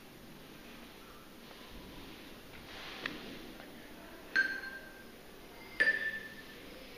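Glockenspiel metal bars struck with a mallet: a light tap about three seconds in, then two ringing notes about a second and a half apart, the second slightly higher.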